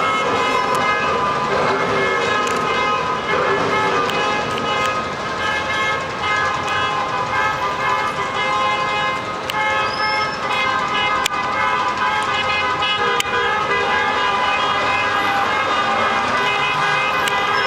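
Many car horns honking at once, overlapping and nearly continuous, with toots starting and stopping all the time over slow-moving street traffic.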